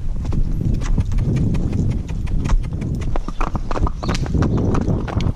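Hoofbeats of two horses, the ridden mare and one alongside, moving at a quick gait: many fast, uneven strikes over a low rumble.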